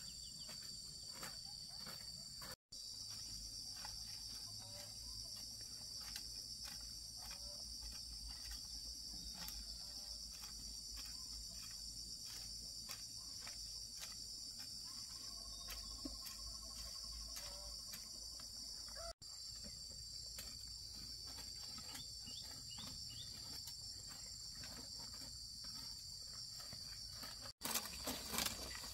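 Insects, crickets or cicadas, chirring as one steady high-pitched drone, with scattered faint clicks and knocks beneath. The sound cuts out for an instant three times.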